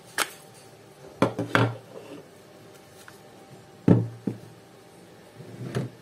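Plastic power-tool battery packs and a cordless rivet tool being set down on a concrete floor: a series of hard knocks and clatters, the loudest about four seconds in.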